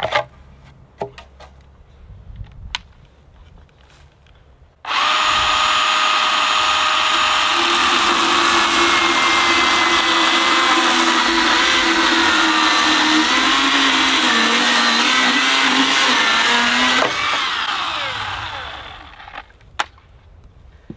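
Cordless electric chainsaw cutting through a round wooden fence post. It starts abruptly about five seconds in and runs with a steady whine whose pitch wavers as the chain bites, then winds down about twelve seconds later. A few sharp knocks come before it.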